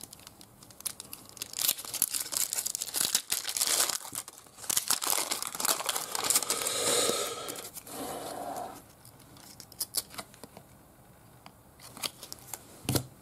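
A foil trading-card pack wrapper being torn open and crinkled, with cards rustling and clicking as they are handled. It dies down about nine seconds in, then a few card clicks come back near the end.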